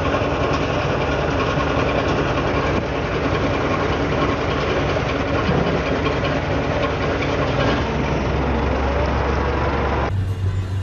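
Heavy diesel engine idling steadily. About ten seconds in it gives way abruptly to a different engine sound with a stronger low hum.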